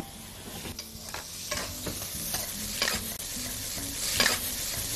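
Stir-frying in a wok: a steady sizzle of frying food, with a metal ladle scraping and turning prawns and vegetables in short repeated strokes, the loudest about four seconds in.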